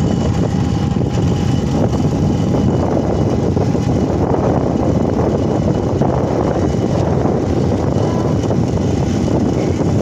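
Steady engine and road noise of a vehicle travelling along a rough unpaved dirt road.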